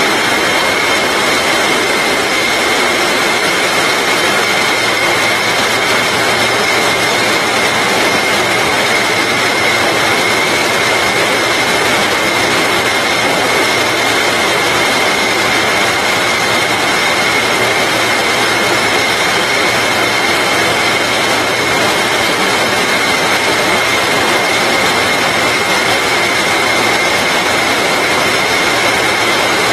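Bottling-line machinery running steadily: an unbroken loud machine noise with a constant high-pitched whine over a low hum.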